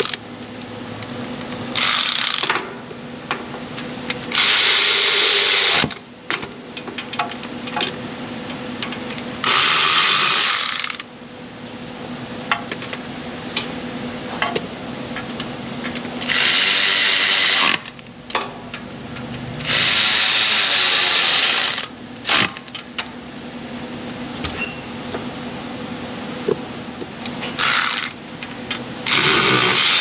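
Power ratchet with a 10 mm socket running nuts down onto studs in about seven bursts of one to two seconds each, with small clicks and clanks of the tool and hardware between the bursts.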